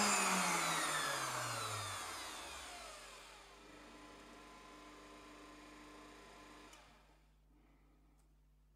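Electric household meat grinder with a sausage-stuffing tube winding down: its motor hum falls steadily in pitch and fades over about three seconds. A faint steady hum follows and stops a couple of seconds before the end.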